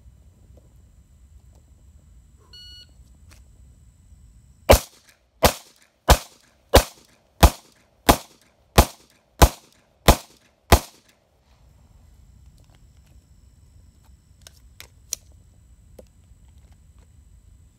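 A short electronic beep, then about two seconds later a handgun fires ten shots at a steady pace of about one and a half shots a second.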